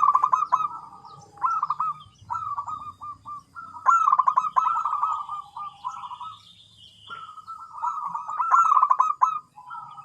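Zebra dove (perkutut) cooing in repeated phrases of quick, rolling staccato notes, with short pauses between phrases.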